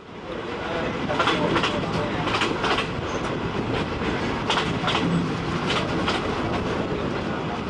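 State Railway of Thailand local passenger train running, heard from an open-windowed carriage: a steady rumble of wheels on rail with sharp clickety-clack as the wheels cross rail joints, the clicks coming in pairs about every second or so. The sound fades in at the start.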